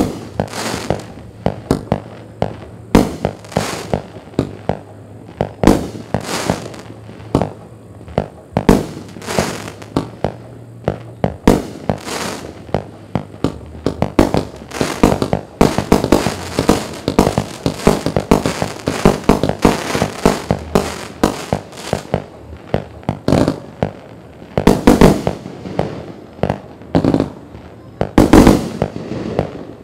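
A 500-gram, 45-shot consumer firework cake (SkyPainter 'Hopefull') firing in quick succession: repeated launch thumps and aerial bursts, with a denser stretch of shots in the middle and the loudest bangs near the end.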